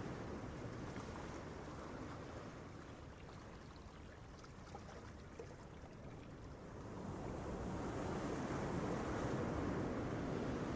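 Ocean waves breaking on a beach: a steady wash of surf that ebbs for a few seconds, then swells as the next wave comes in about two-thirds of the way through.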